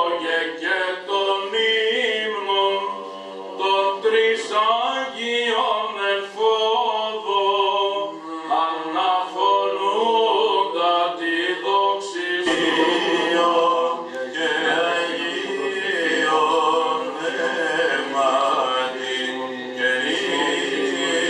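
Unaccompanied male Byzantine chant of an Orthodox vespers hymn, with long melodic lines drawn out over held vowels; about twelve seconds in, a deeper voice joins beneath.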